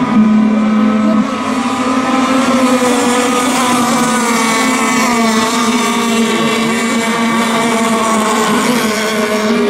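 Several radio-controlled race boats' small engines running flat out together, their steady engine notes overlapping; one strong note drops away about a second in.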